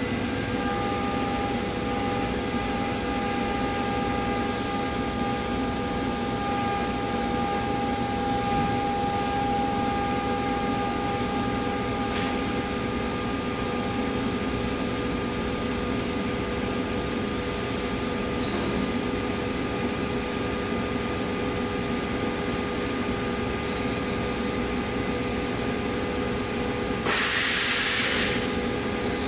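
Omax 60120 CNC waterjet running: a steady mechanical hum with several held tones under a hiss. Near the end a loud hiss lasts about a second.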